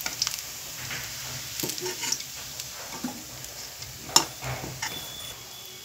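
Soybean pakoras deep-frying in a kadhai of hot oil with a steady sizzle, while a spoon scrapes and knocks against the pan as they are lifted out; the sharpest knock comes about four seconds in.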